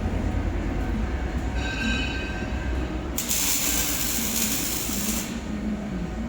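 Air-cooled 2000 W handheld laser welder with wire feeder making a weld pass: a brief high whine about a second and a half in, then about two seconds of loud, even hiss that cuts off, over the machine's steady low hum.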